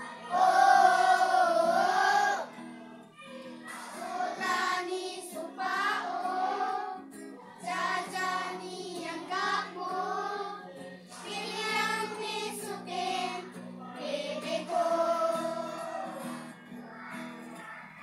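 A group of children singing together in short phrases with brief breaks, the first phrase the loudest.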